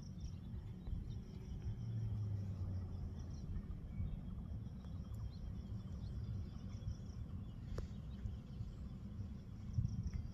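Insects trilling in a steady high pulsing tone over a low rumble, with a brief low hum about two seconds in.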